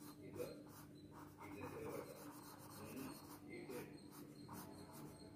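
Graphite pencil scratching on paper in a quick run of short, faint strokes, shading long strands of hair.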